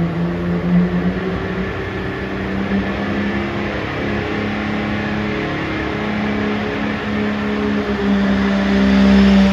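A 4x4 diesel pulling truck's engine running at high, steady revs under load down the pull track, getting louder near the end.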